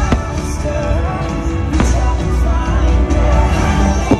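Fireworks show soundtrack music playing loudly over park loudspeakers, broken by a few firework bangs, with a sharp cluster of bangs at the very end.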